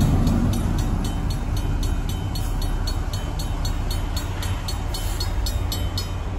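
Mechanical railroad crossing bell ringing with rapid, even strikes, about four a second, over the fading rumble of a freight train's last locomotive and wheels rolling away. The bell stops near the end as the crossing signals shut off.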